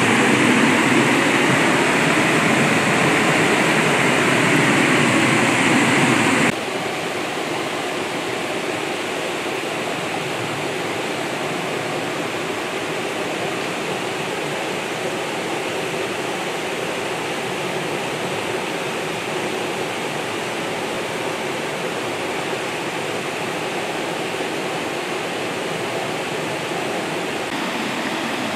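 Creek water rushing over rocks, a steady rush of noise. About six seconds in it drops suddenly to a quieter, thinner rush that stays steady.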